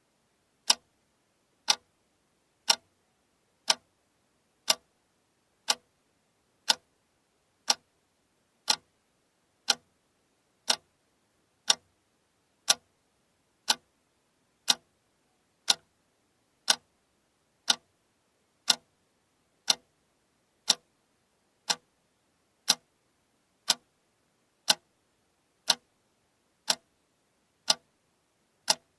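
Alarm clock ticking steadily, one sharp tick a second.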